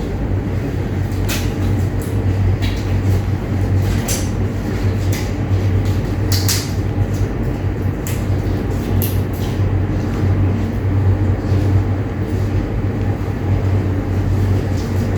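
A steady low hum of room background noise, with light clicks and rustles every second or two, the sharpest about four and six and a half seconds in.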